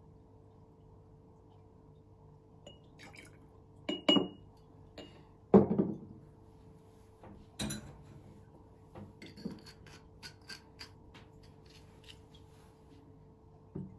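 Glass clinks and knocks as a glass liqueur bottle and a plastic measuring spoon are handled over an empty glass jar and set down: a couple of sharp knocks about four seconds in, the loudest, heavier knock a moment later, then scattered lighter clicks.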